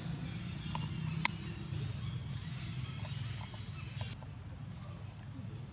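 Insects chirring in a high, evenly pulsing trill over a low steady hum, with one sharp click about a second in.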